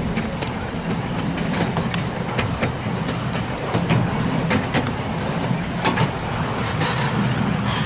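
A 7¼ inch gauge miniature train on the move: the diesel locomotive's engine running with a steady low hum, and the wheels clicking irregularly over the track.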